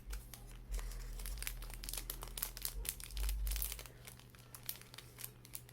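Packaging crinkling and rustling in a string of small irregular crackles while a lobster clasp is taken out, busiest in the first half and thinning out later.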